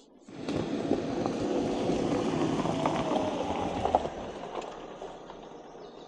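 A motor vehicle driving up slowly on a forest track: engine and tyre noise that starts suddenly just after the start and dies down after about four seconds as it draws to a stop.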